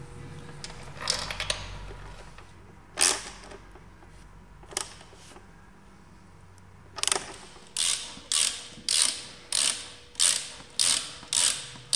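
Socket ratchet wrench clicking as a bolt is tightened on the exhaust mount, in a steady series of strokes about one every 0.6 s that starts a little past halfway. Before that come a few single sharp clicks.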